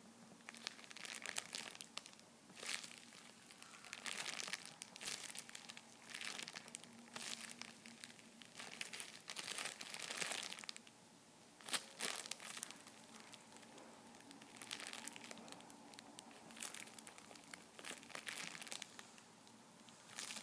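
Thin clear plastic packaging crinkling in repeated bursts as hands squeeze and handle a squishy toy inside its bag and wrapper, with one sharper crackle about halfway through.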